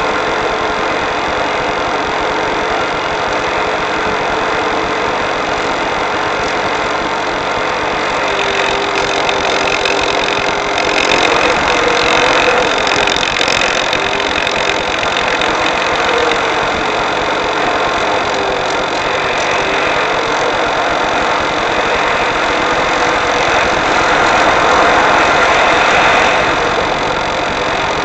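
Phoenix Evolution 2600 electric RC glider in flight, heard from onboard: a continuous rushing noise with a faint wavering hum underneath. The rush grows louder twice, about eleven seconds in and again near the end.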